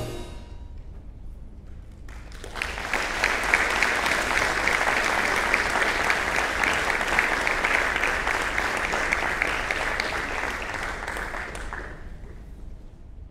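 Audience applauding at the end of a concert band piece: the clapping begins about two and a half seconds in and fades away near the end.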